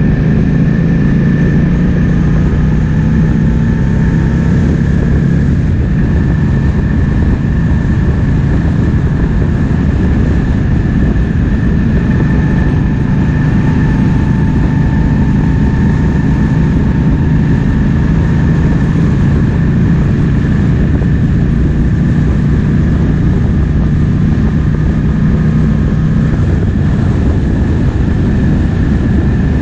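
Triumph Speed Twin 1200's parallel-twin engine running steadily while riding, mixed with wind noise.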